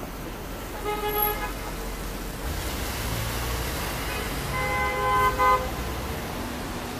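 Car horns honking twice in street traffic: a short honk about a second in and a longer, louder one around five seconds, over steady traffic noise with a low engine rumble.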